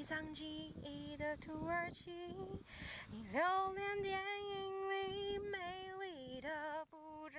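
A song with a singing voice over the footage: melodic phrases of held notes, the longest held from about three and a half to five and a half seconds in, with vibrato.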